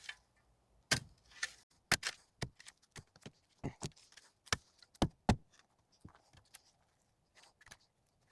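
Shovel striking and scraping against buried concrete while digging around a post footing: a string of about a dozen sharp, irregular strikes over the first five seconds or so, then fainter scrapes.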